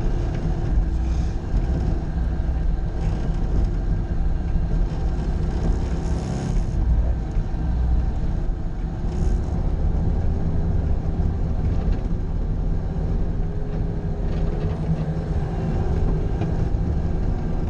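Bobcat skid-steer loader's engine running steadily while plowing snow, its pitch wavering slightly.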